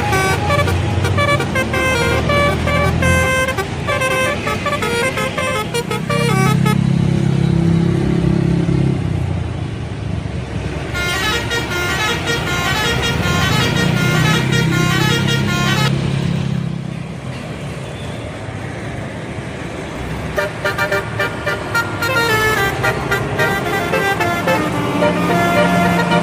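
Indonesian bus telolet horns playing quick tunes of stepped notes in three long bursts, with a bus engine running underneath between them.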